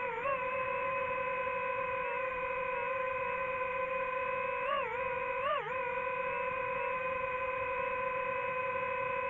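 DJI FPV drone's motors and propellers whining steadily at one pitch. The pitch wavers briefly once near the start and twice about halfway through.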